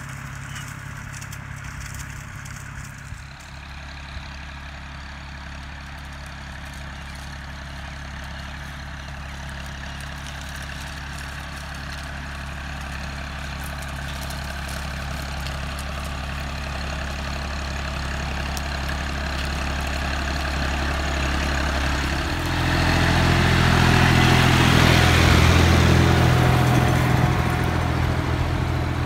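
John Deere tractor's diesel engine running steadily under load as it pulls a disc plough through dry soil. It grows gradually louder, then jumps louder about 22 seconds in, close up, with the scrape and rush of earth turned by the plough discs mixed in with the engine.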